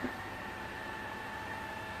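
Vacuum cleaner running steadily, its motor giving a constant whine over a rush of air, with one brief knock right at the start.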